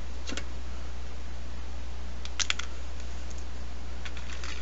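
Small sharp clicks and taps from resistors being handled and their wire leads pushed into a plastic solderless breadboard: one near the start, a quick cluster about halfway (the loudest), and a few more near the end. A steady low hum runs underneath.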